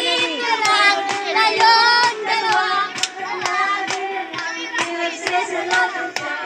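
Several people singing a song together over backing music, with hand claps keeping time about twice a second.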